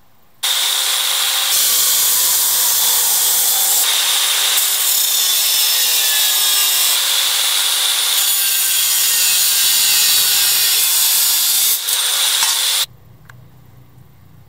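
Electric angle grinder with a thin cut-off disc slicing through a metal motorcycle rear fender: a loud, harsh, high-pitched cutting noise. It starts about half a second in, runs with small shifts in pitch as the disc loads up, and stops abruptly near the end once the piece is cut off.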